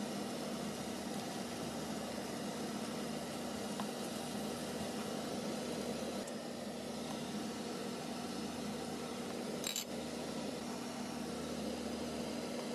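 Pork sisig sizzling in oil in a frying pan, an even hiss over a steady low hum, with one sharp tap near the end.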